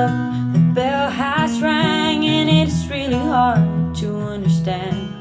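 Acoustic guitar song with a sung melody, played back through Genelec M030 studio monitors and a 7040A subwoofer and picked up by a stereo microphone in a small room, so the room's own sound colours it.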